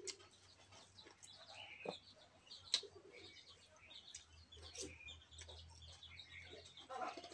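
Quiet eating sounds: fingers working rice on a steel plate and chewing, with a few sharp clicks, over faint chirping like birds in the background and a low steady hum.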